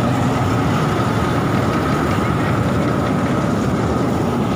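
Ragi (finger millet) harvesting machine running steadily, its engine a constant low rumble with a steady high whine over it.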